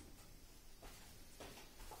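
Near silence: room tone in a workshop, with a couple of very faint soft knocks.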